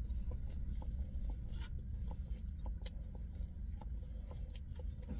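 A person chewing and eating, with many small, irregular clicks and mouth noises, over a steady low hum inside a car cabin.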